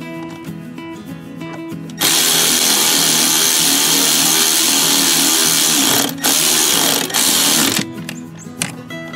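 Milwaukee cordless drill/driver spinning a socket on an extension to run in the bolts that join the two housing halves of a hydro-boost brake booster. There is one long run of about four seconds starting two seconds in, then two short bursts near the end, over quiet background music.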